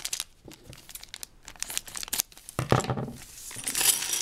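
Small plastic bag of Lego parts crinkling and being torn open, with scattered clicks of the pieces inside and a louder bump partway through.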